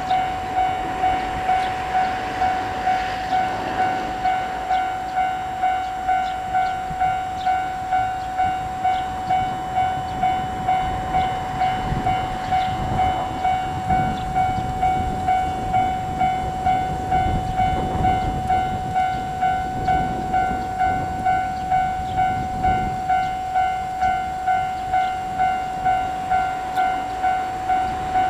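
Japanese level-crossing warning alarm ringing its electronic kan-kan tone over and over at an even pace, a little faster than once a second. Through the middle a train rumbles over the crossing with a low running noise.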